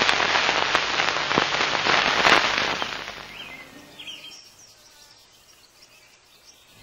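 A loud crackling hiss full of sharp ticks that fades out over about three seconds, followed by a few faint bird chirps.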